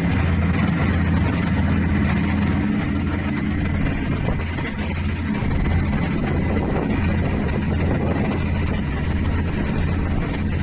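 Fishing boat's engine running steadily, a constant low hum.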